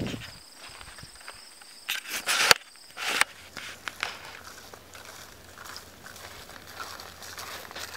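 Footsteps and the rustle and knock of outdoor gear being handled, loudest about two seconds in, then softer rustling steps over a faint low hum. A steady high insect trill runs underneath and stops suddenly about two and a half seconds in.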